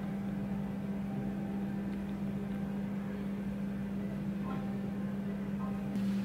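A steady low mechanical hum, with a couple of faint brief higher sounds in the second half.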